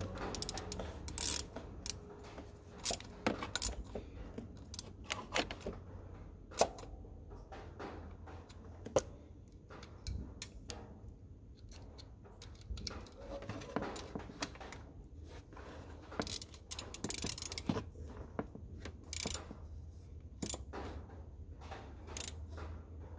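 Ratchet wrench clicking in short irregular runs, with metal tools clinking, as the water pump's bolts are tightened down.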